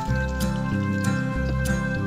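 Background music with a steady bass beat and held notes.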